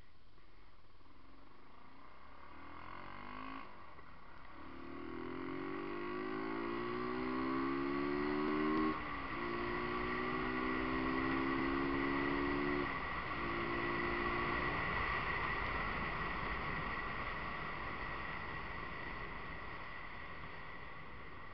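Daelim Daystar motorcycle engine pulling away, its pitch climbing for several seconds, with a gear change about nine seconds in, then holding steady. Later the engine fades under a steady rush of wind and road noise.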